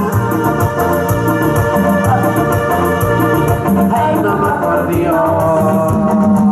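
Loud amplified dance music: an electronic keyboard holds organ-like chords over a fast, steady beat with quick, even high ticks.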